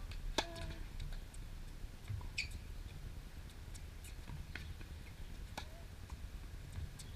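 Scattered sharp knocks of a tennis ball on a hard court, with short squeaks of tennis shoes. The loudest knock comes just under half a second in.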